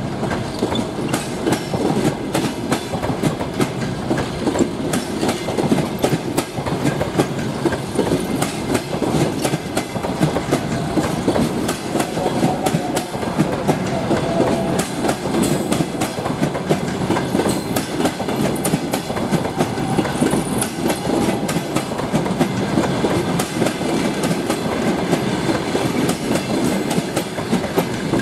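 Passenger train coaches rolling past, with a continuous rumble and wheels clicking over the rail joints.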